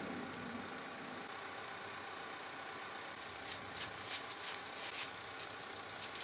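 Paper towel rubbing over a glued wooden rocker held in a vise, wiping off excess glue: a run of soft, short swishes starting about three and a half seconds in, over a steady faint hum.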